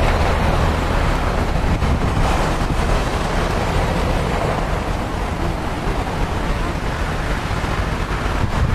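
Wind blowing on the microphone, a steady even rush heavy in low rumble, with no distinct events.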